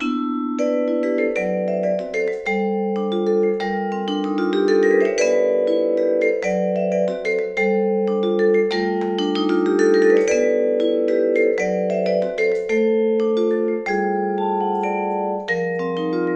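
Saito VS 1500 DC vibraphone played solo with four mallets: ringing chords, broken twice by quick rising runs of notes.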